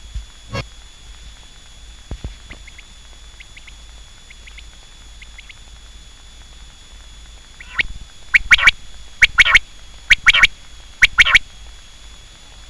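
Quail calling: after a quiet stretch, a run of short, sharp calls in quick pairs begins about eight seconds in and repeats four or five times.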